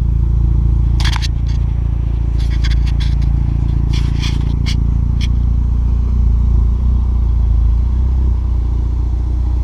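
2015 Kia Optima SX Turbo's turbocharged four-cylinder idling through a freshly installed ARK Performance DT-S exhaust with test pipe: a steady low drone. A few sharp clicks or taps sound between about one and five seconds in.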